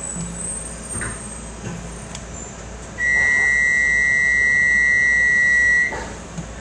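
Electronic door warning tone of a Docklands Light Railway train standing at the platform: one loud, steady high beep lasting about three seconds, starting about three seconds in.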